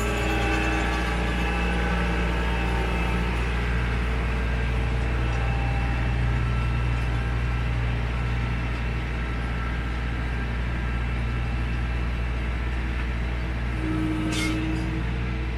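Compact tractor's diesel engine running steadily as it pulls away across the lawn towing an implement.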